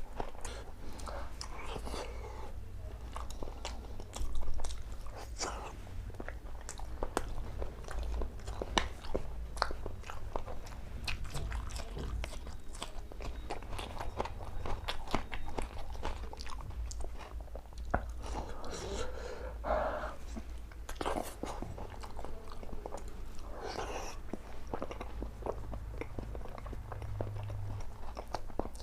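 Close-miked chewing and biting of food, with irregular crisp crunches, from a person eating boiled eggs with raw chillies and onion-tomato salad, over a steady low hum.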